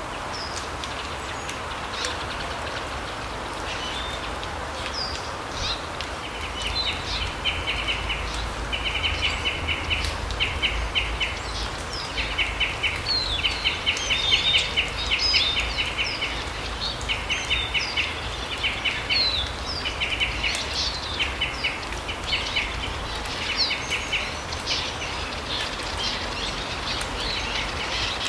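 Small forest birds calling over a steady hiss of background noise. From about six seconds in come many short, fast rattling trills, repeating roughly once a second, mixed with high thin chirps.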